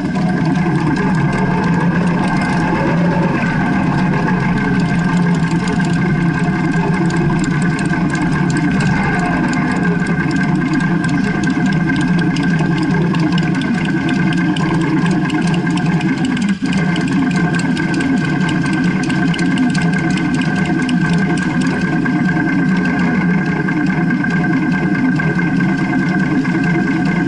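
Cruiser motorcycle engine running steadily at low revs, heard close up from the handlebars, with one brief dip about 16 seconds in.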